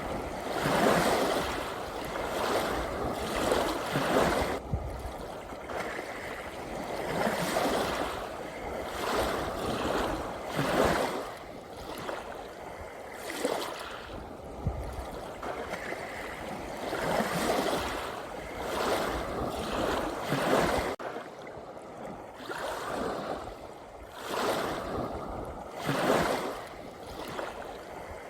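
Ocean waves washing in one after another, swelling and falling away every two to three seconds, with a calmer spell about three quarters of the way through.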